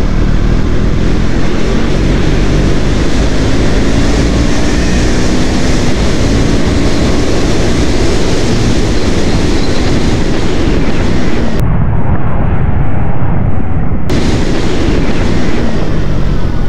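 KTM Duke 200's single-cylinder engine running while riding, under heavy wind rush on the microphone; the engine note drifts up and down a little with the throttle. Near the end the high hiss drops away for about two seconds.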